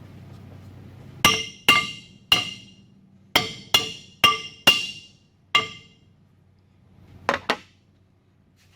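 Ten hammer blows on metal, each ringing briefly: eight spread over about four seconds, then a pause and two quick ones. They are struck to knock loose a front brake drum and hub whose bearing is stuck fast.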